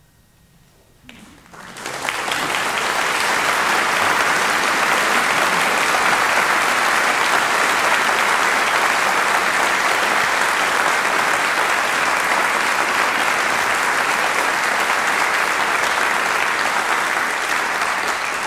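Audience applause breaking out about a second in after a brief hush, swelling within a second and then holding steady.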